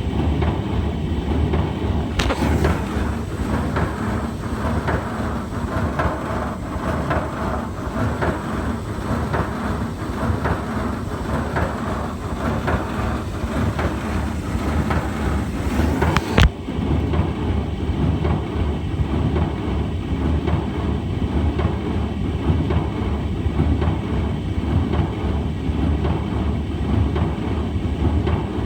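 A brand-new Hotpoint tumble dryer running with a loud, continuous rumbling and rattling, a noise the owner calls terrible and is unsure is normal. About two seconds in, a click brings in a harsher, higher rattle. It stops at a sharp knock about 16 seconds in, leaving a steady low rumble.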